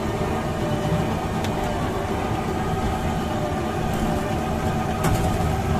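Steady low rumble of a running engine, with a few light clicks.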